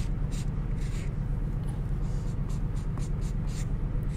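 Blue chisel-tip highlighter scrubbing across grey card in short, irregular scratchy strokes, several a second, as it colours in a drawing. A steady low hum runs underneath.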